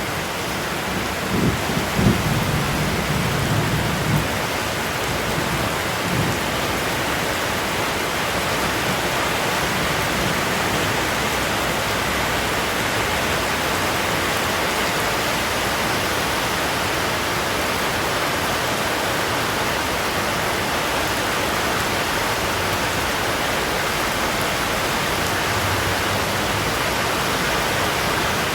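Heavy rain falling steadily in an even rush, with a few low rumbles in the first few seconds.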